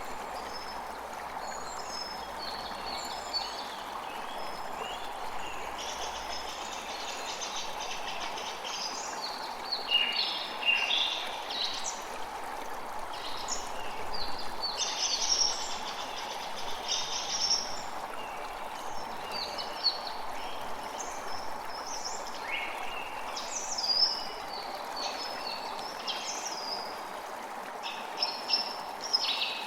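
Steady rush of flowing water under frequent bird chirps and quick twittering calls.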